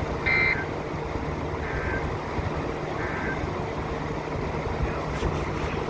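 Emergency Alert System end-of-message data bursts on weather radio: three short two-tone digital screeches, the first loud and the second and third faint, about a second and a half apart. They sit over steady radio hiss and hum.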